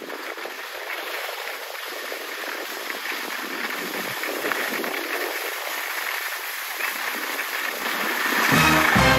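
A steady, even hiss of outdoor noise that grows a little louder near the end, where background music comes in.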